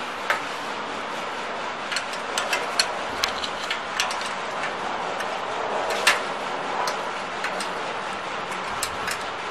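Irregular sharp metal clicks and taps of a wrench on the bolts holding the motor to the chalk making machine's steel frame, over a steady background hiss. The clicks bunch up about two to four seconds in, with a louder one about six seconds in.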